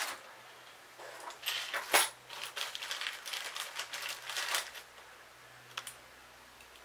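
Small metal hand tools clicking and clattering as they are sorted through to pick out a wrench. There is a knock at the start, a sharp clink about two seconds in, and a last click near the end.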